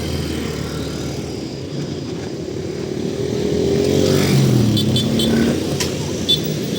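TCDD DE 22000-class diesel-electric locomotive, DE 22024, running with a low engine note that grows louder about three to four seconds in, with a few short clicks near the end.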